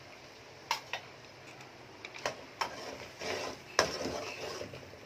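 Metal spoon clinking and scraping against a stainless steel pot while stirring chicken karahi masala in oil: a few sharp clinks, the loudest about four seconds in, with frying sizzle building from about three seconds in.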